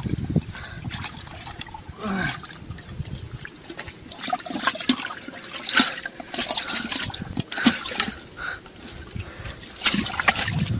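Muddy shallow water splashing and sloshing, with many short, sharp splashes, as hands grope in it to grab catfish.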